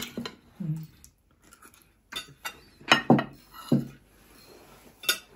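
Cutlery and serving spoons clinking against plates and dishes as food is served and eaten, in scattered irregular clinks.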